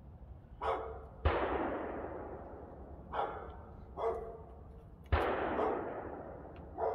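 Two distant gunshots about four seconds apart, each a sharp report that rolls away in a long echo, with a dog barking several times in between.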